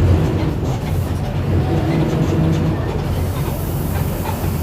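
Mercedes-Benz OF-1722M bus running along, with a steady low drone and the growl of its differential.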